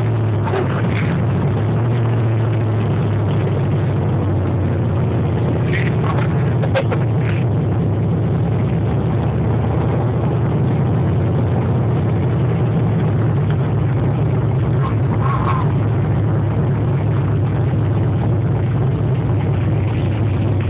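Modified Chevrolet Corvette V8, tuned to over 650 hp at the rear wheels, cruising at low, steady revs. It is heard from inside the cabin through a phone's microphone, a steady engine drone with no hard acceleration.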